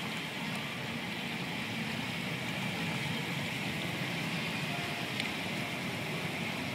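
Hot tub jets churning the water: a steady rushing, bubbling sound.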